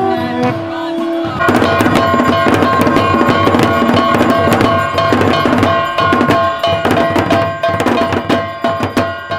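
Several large double-headed barrel drums beaten together in a fast, dense procession rhythm, with a steady ringing tone sounding over the strikes. The drumming starts suddenly about a second and a half in, after a short stretch of held pitched tones.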